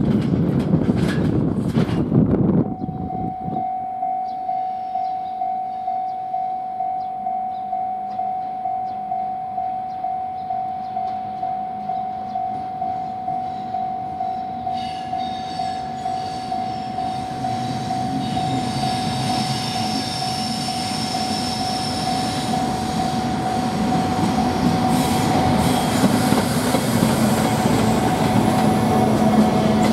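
Opens with the rumble of a container freight train running past, cut off about three seconds in. Then a level-crossing warning bell rings steadily, about twice a second, while a JR Freight EF510 electric locomotive hauling container wagons approaches, its rumble and wheel noise growing over the second half until it passes close by at the end.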